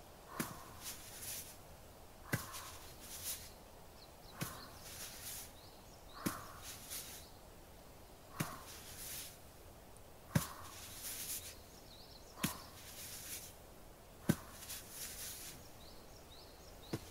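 Acupressure massage on the forearm, recorded close-up: hands press and rub along the arm in a slow rhythm, a short tap followed by a soft rustle about every two seconds.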